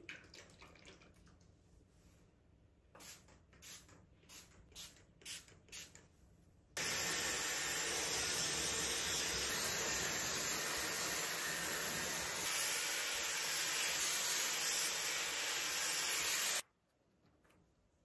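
A handheld hair dryer, a Dyson Supersonic, blowing steadily on wet hair for about ten seconds, starting about seven seconds in and cutting off suddenly near the end. Before it comes a quick run of about seven short hisses from a pump spray bottle.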